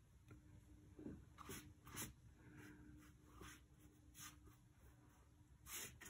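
Faint swishes of a wide hake brush sweeping wet paint across rough watercolour paper, about five strokes spaced irregularly, the last the loudest near the end.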